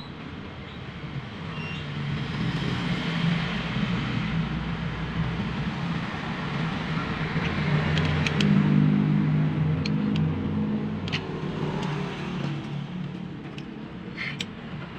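A motor vehicle engine running, growing louder over several seconds and then easing off, with a few short clicks of pliers on a metal window regulator in the second half.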